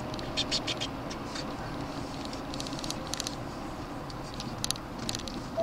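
Steady road and engine noise inside the cab of a Chevy Silverado pickup on the move, with several short bursts of light, high clicking or rattling.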